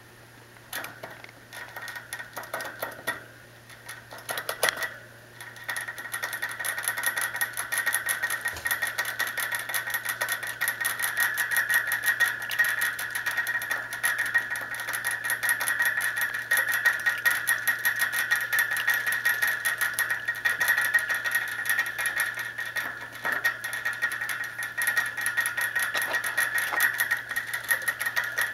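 Rabbit drinking from the metal sipper tube of a cage water bottle: fast, steady clicking and rattling at the spout as it licks. Only a few scattered clicks at first, turning continuous about five seconds in.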